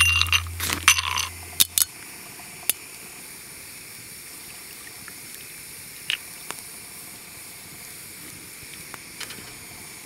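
Ice cubes clinking against a glass tumbler, several sharp clinks in the first two seconds. Then shochu is poured over the ice with a faint steady trickle, and a few single light clinks follow.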